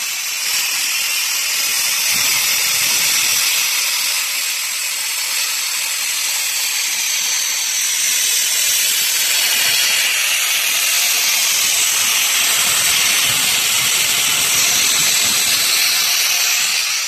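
Handheld dustless suction sandblaster blasting steel grit against rusted steel, a steady loud hiss as the rust is stripped and the grit is sucked back through the recovery hose.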